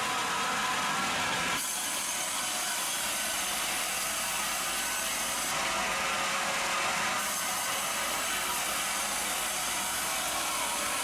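Sawmill machinery running with a steady noise of timber being sawn. The sound changes abruptly about a second and a half in, and again around five and a half and seven seconds.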